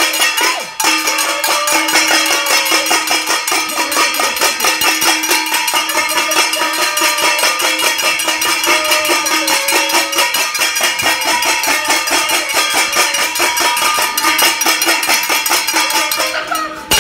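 Cowbells clanging rapidly and continuously, with their ringing tones held underneath; there is a brief break just under a second in, and it eases off near the end.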